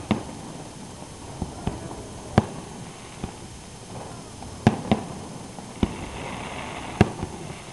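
Aerial fireworks shells bursting overhead: a string of about nine sharp bangs at uneven intervals, with a brief hiss around six seconds in.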